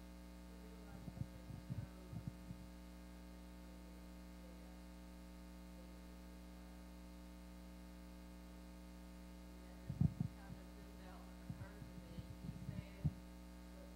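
Steady electrical mains hum from the microphone and sound system, with a few faint, indistinct short sounds about a second in and again near the end.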